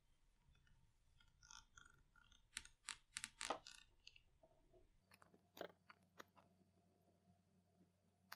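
Faint clicks, crackles and rustles from hands handling and posing a Medicom Real Action Heroes 1/6-scale figure in a cloth suit. A quick cluster of sharper clicks comes about three seconds in, with a few more scattered after.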